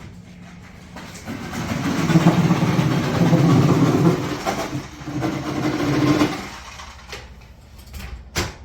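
A motor running for about five seconds, with a steady low hum. It builds up about a second in, dips briefly, then cuts off a couple of seconds before the end.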